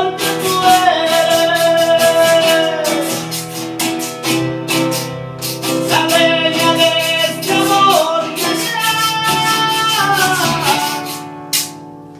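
Nylon-string acoustic guitar strummed, with a man singing a slow ballad in long, gliding held notes over it; the music fades out near the end.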